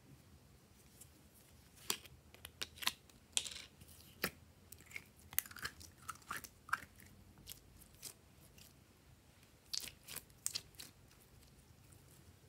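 A soft plastic squeeze bottle of glossy gold slime being squeezed and emptied. The bottle gives irregular clicks and crackles, and the slime makes a few short wet squelches as it is forced out, most of them near the middle.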